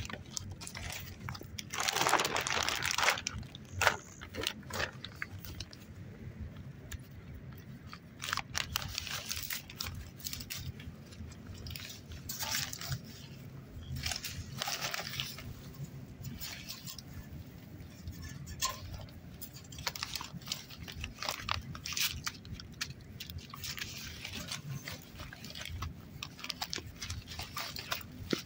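Dogo Argentino puppy scrambling and rolling on a plastic sheet and fallen leaves: irregular crinkling, crackling and crunching, with a longer, louder burst about two seconds in.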